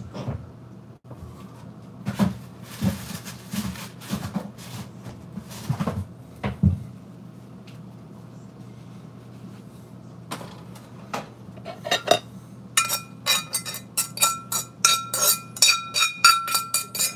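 Kitchen clatter as a skillet is handled: a few dull knocks and clunks, then a fast run of sharp, ringing metallic clinks near the end as a fork scrapes and taps gravy and vegetables out of the skillet onto a plate.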